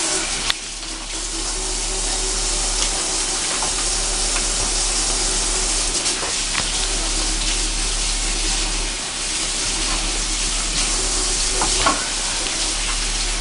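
Kitchen tap running steadily while hands are washed under it, with a light knock just after the start and another near the end.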